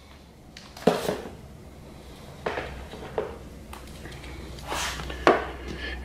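Turn signal switch parts and a chrome metal stock being handled and set down on a wooden workbench: several separate knocks and clinks, the loudest near the start and near the end, over a faint low hum.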